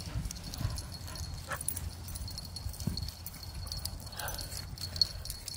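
Faint thuds and rustles of a dog running across a grass lawn after a thrown ball, over a steady low rumble.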